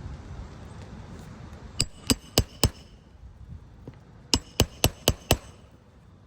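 Hammer driving roofing nails into a shingle: two quick runs of sharp blows, four and then five, about four a second.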